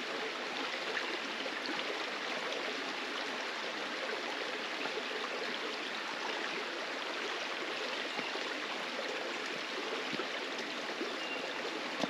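A stream flowing steadily: an even, continuous rush of running water.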